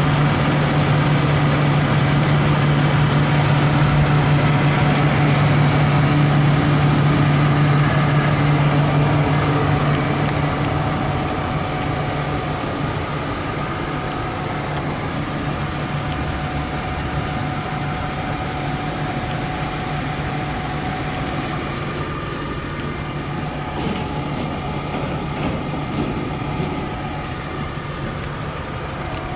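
BMW E46 320i's naturally aspirated 2.0-litre inline-six idling with a steady, even hum. It is louder for the first ten seconds or so, then a little quieter and steady.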